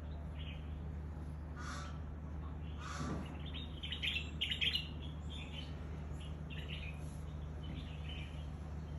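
Bird chirping in short calls, with a quick cluster of chirps about four to five seconds in, over a steady low hum.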